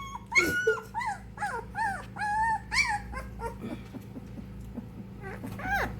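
Three-week-old XL American Bully puppy whimpering and crying in short high cries while oral dewormer is squirted into its mouth; the cries come thick in the first three seconds, thin out, then pick up again near the end.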